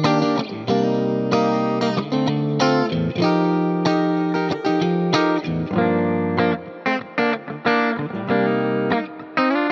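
Saito S-622CS SSH electric guitar played through an amp-simulator plugin with delay and reverb: chords and single notes in short phrases, changing every half second or so, with brief breaks between them.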